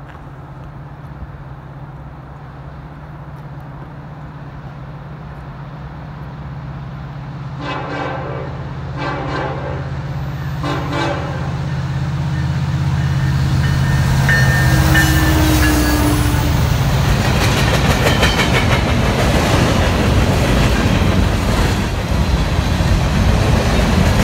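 Union Pacific SD70ACe diesel locomotive approaching, its engine rumble building, then three short blasts of its Nathan K5LLA five-chime air horn as a salute, about eight to eleven seconds in. From about halfway the locomotive and its freight cars pass close by, loud with engine and wheel-on-rail noise.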